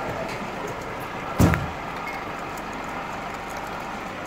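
Fire engine's engine idling steadily, with one sharp, loud thud about a second and a half in.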